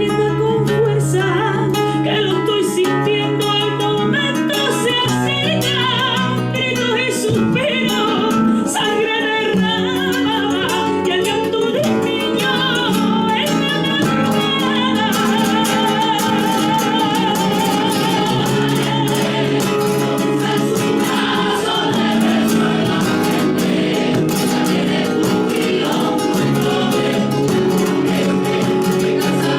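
Music: a Spanish Christmas carol (villancico), sung with instrumental accompaniment.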